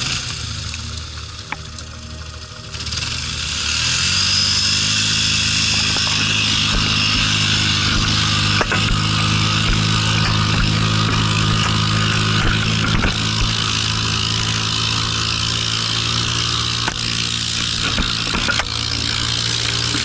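Polaris snowmobile engine revving up about three seconds in and held at high revs while the stuck sled's track spins in deep wet snow, with a steady hiss of snow being thrown.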